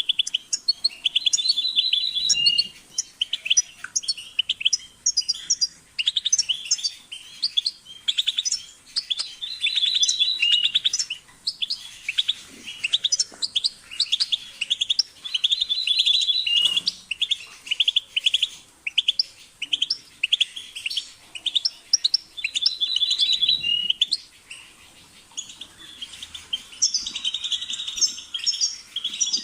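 European goldfinch singing: a fast, unbroken run of liquid twittering chirps and trills, high-pitched, with only brief pauses between phrases.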